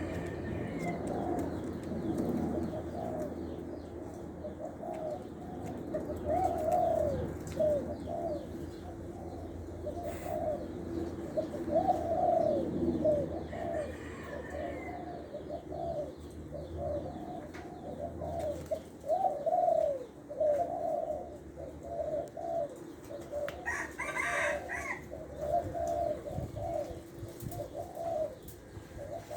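Spotted dove cooing over and over in a long series of low, arching coos: a decoy-bird male with a mid-pitched voice. A brief higher bird call cuts in once, near the end.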